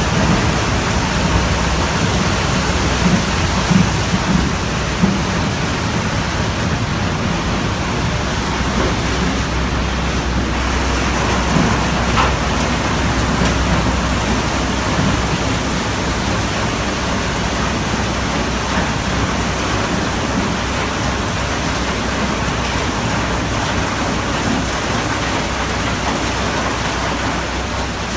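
Crushed ice rushing down a loading chute into a fishing boat's hold: a loud, steady hiss with a low hum beneath it and a few knocks about four seconds in.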